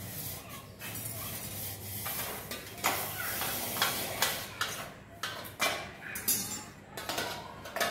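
Metal tongs clinking and scraping against the inside of a steel mug in a run of irregular sharp clinks. A low steady hum fades out about two seconds in.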